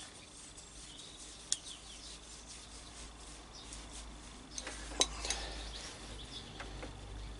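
Small scattered clicks, taps and clinks of a 12 V plug and its wiring being handled and assembled, with a sharper click about a second and a half in and a cluster of clicks about five seconds in.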